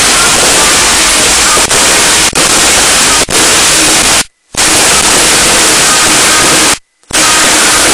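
Overloaded, distorted recording of stadium crowd noise and fireworks during a supporters' pyrotechnic display, a dense noise with no clear tones. It cuts out to silence twice, briefly, about four and about seven seconds in.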